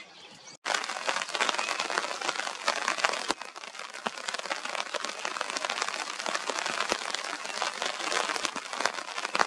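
Rain pattering close by: a dense, steady crackle of many small drops, starting about half a second in after a short gap.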